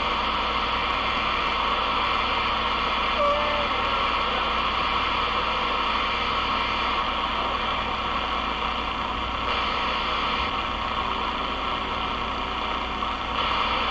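Steady static hiss from a Galaxy DX33HML CB radio's speaker as it receives an empty channel with no station coming through.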